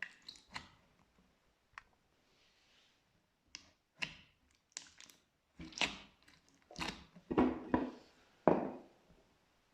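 Glitter slime being pressed and squished by hand: a string of short wet clicks and pops, growing into longer, louder squelching crackles in the second half.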